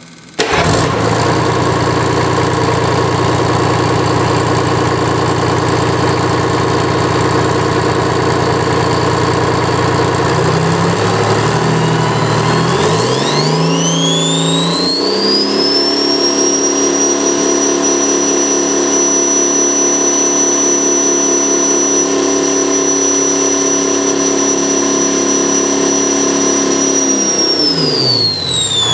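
Detroit Diesel 6V53T turbocharged two-stroke V6 diesel fires almost at once about half a second in and idles steadily. About halfway through it is run up to high speed, with a high whine rising with it. It holds there, then falls back to idle near the end.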